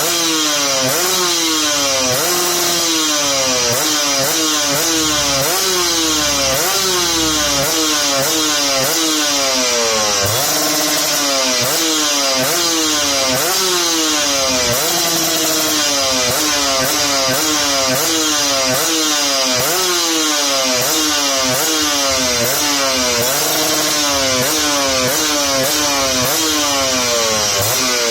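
Two-stroke motorcycle engine with a Creampie Zz1 competition exhaust, being revved over and over, each throttle blip rising quickly and dropping back, about once a second.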